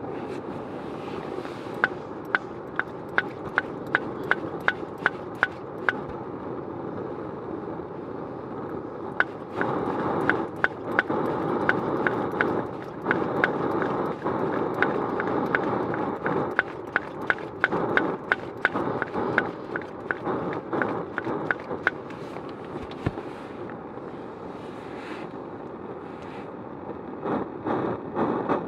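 Portable gas camping stove burner hissing steadily, louder for a stretch in the middle. A run of sharp clicks, about two or three a second, sounds from about two to six seconds in, and more scattered clicks come later.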